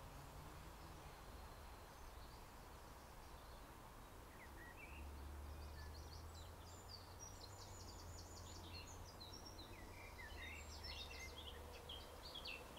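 Faint outdoor birdsong: small birds chirping and trilling in quick runs of short notes from about five seconds in, busiest near the end, over a steady low rumble.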